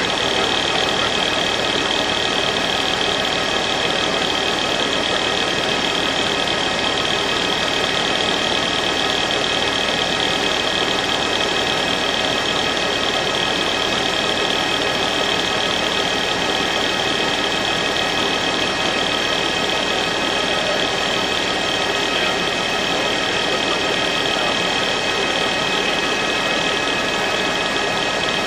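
Helicopter engine noise heard on board the camera aircraft: a steady hiss with several constant high whining tones, unchanging throughout.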